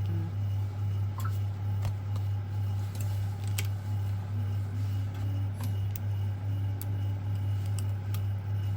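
A steady low hum runs throughout, with scattered small clicks and taps of tools working on a phone.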